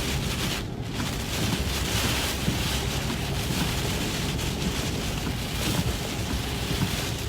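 Heavy wind-driven rain and strong gusts hitting a moving vehicle in a thunderstorm core. A steady low road rumble runs underneath.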